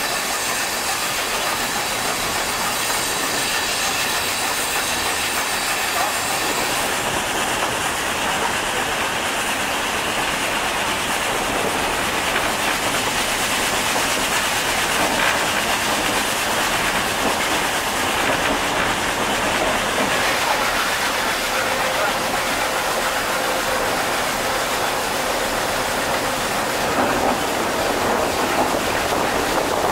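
Achensee Railway steam train running, heard from an open carriage: a steady rattle and rumble of the wheels on the track.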